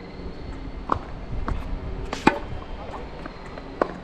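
Tennis ball struck by rackets in a rally: three sharp hits about a second and a half apart, the middle one the loudest.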